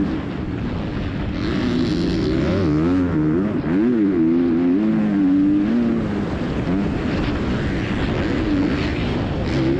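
A KTM 250 SX-F motocross bike's single-cylinder four-stroke engine revving up and down on board during a lap, its pitch rising and falling every second or so as the throttle is opened and closed. A hiss of wind and dirt noise rises over it about a second and a half in.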